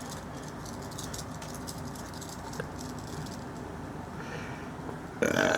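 Faint rustling and light clicking as a leather rattlesnake-skin hatband with its real rattle is handled. A short, loud throaty vocal sound comes in near the end.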